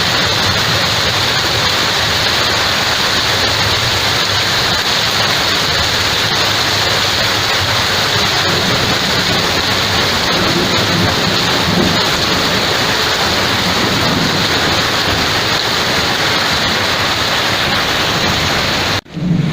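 Heavy rain pouring down steadily, a dense even hiss that cuts out abruptly near the end.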